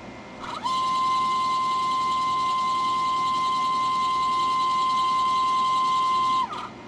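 Sherline CNC mill's stepper motor driving an axis in a rapid move: a loud, steady whine that rises in pitch as it speeds up about half a second in, holds for about six seconds, then falls in pitch and cuts off as it slows to a stop.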